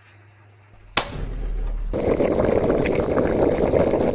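Cartoon cooking sound effect: a sharp click with a short low rumble about a second in, then a pot bubbling and simmering steadily over the flame, full of small pops.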